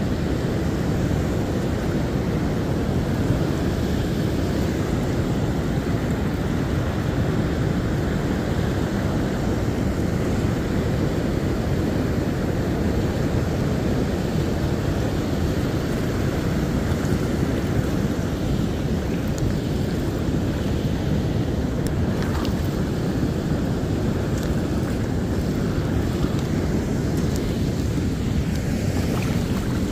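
River current rushing over a shallow riffle, a steady wash of water, with wind buffeting the microphone.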